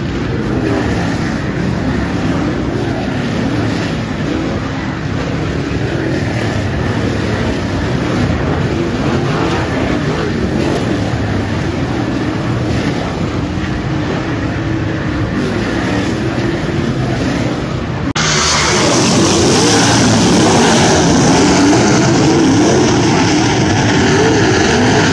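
A field of dirt super late model race cars' V8 engines running hard, their pitch rising and falling as they slide through the turn. About 18 seconds in, the sound cuts to a louder, sharper recording of the cars.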